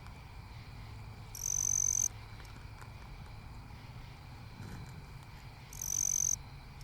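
An insect calling twice, about four seconds apart: each call is a high, even-pitched burst lasting under a second. A steady low hum runs beneath.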